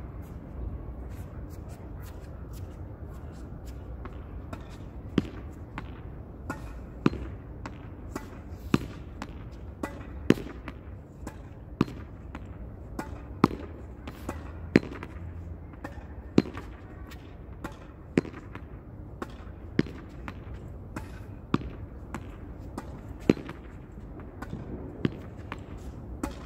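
A ball being hit against a wall again and again in a steady rally. After a few seconds of faint knocks, sharp loud hits come about every second and a half to two seconds, with fainter knocks between them from the ball bouncing, over a steady low background noise.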